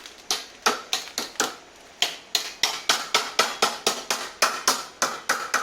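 A hammer striking steel car-body sheet metal in quick, even blows, each with a short metallic ring. A few blows come first, then after a brief pause a steady run of about four a second.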